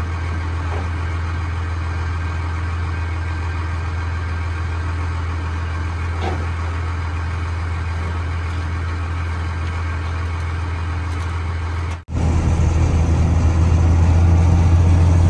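A vehicle engine running with a steady low drone; about twelve seconds in it cuts off abruptly and is replaced by a louder drone of a truck driving on the road.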